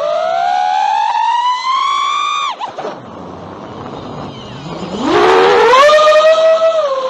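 A Tyro109 5-inch FPV quadcopter's brushless motors and tri-blade propellers whine, rising in pitch as it climbs. About two and a half seconds in the throttle is cut to idle, leaving a low, quieter whir while the quad hangs in the air. About five seconds in the throttle is punched again: a loud, sharply rising whine that settles to a steady pitch.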